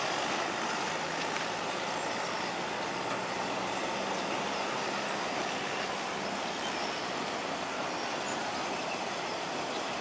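Passenger train rolling across a steel truss railway bridge: a steady noise of carriage wheels on the rails. A faint low hum stops about six and a half seconds in.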